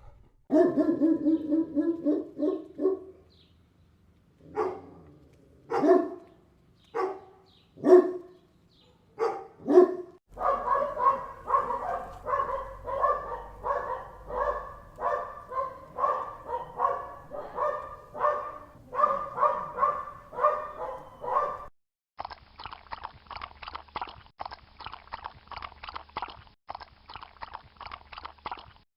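Dogs barking: a quick run of barks, then single barks about a second apart, then fast continuous barking. About three-quarters of the way through it cuts to a different, thinner-sounding recording of rapid repeated barking.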